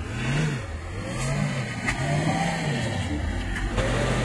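2013 Range Rover's engine running as the SUV crawls over sandy rock ledges off-road, its revs rising and falling in repeated swells about once a second.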